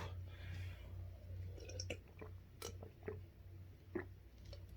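Faint mouth sounds after swallowing: a few scattered wet smacks and clicks over a low steady hum.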